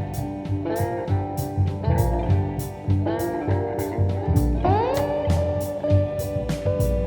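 Background music: a guitar-led instrumental over a steady beat, with one guitar note bending up in pitch about four and a half seconds in.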